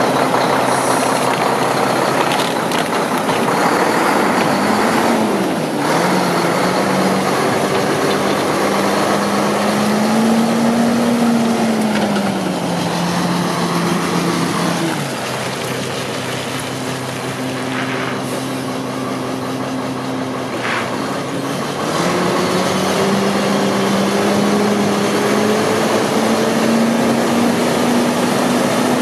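Diesel engine of a 2005 Mack CXN613 day cab tractor running, its speed rising and falling several times and holding steady for several seconds in the middle, with a few brief hisses.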